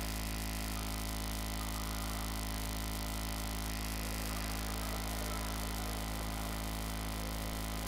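Steady electrical hum with hiss, with no change and no distinct events.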